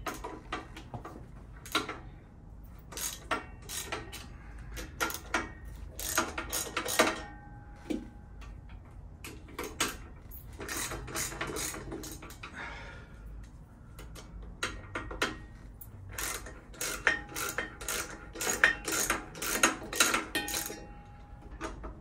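Hand tools working on a motorcycle's front end: several runs of quick metallic clicks from a ratchet wrench turning bolts, with tools clinking against metal.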